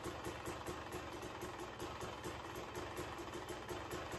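2020 Husqvarna TE300i's single-cylinder fuel-injected (TPI) two-stroke engine idling steadily, slowing as the idle screw is turned down from about 1,360 to about 1,170 rpm, below its proper 1,400–1,500 rpm idle and close to stalling.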